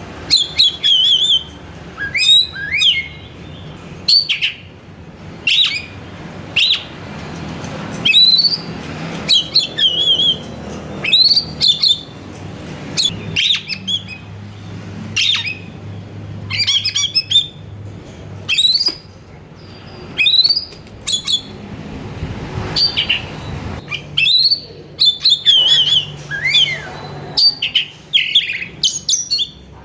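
Oriental magpie-robin singing nonstop: short, loud whistled phrases, many rising and some ending in quick trills, following each other about every half second to a second.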